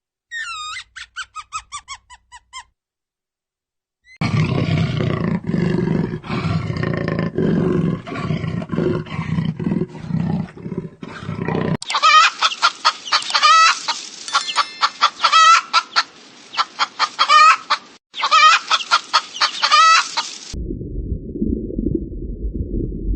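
Chickens or other poultry calling in several short cut-together clips: rapid repeated chirping and clucking calls, broken by a short silence near the start. Near the end the sound turns to a muffled low rumble.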